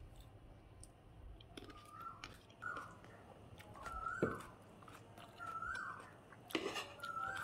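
Eating at the table: chewing, with a spoon scraping and clicking on a plate in short squeaky strokes about every second or so.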